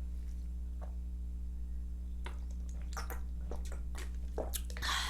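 Close-up mouth sounds of sipping and swallowing water: scattered small wet clicks from about two seconds in, then a louder breathy sound near the end, over a steady low hum.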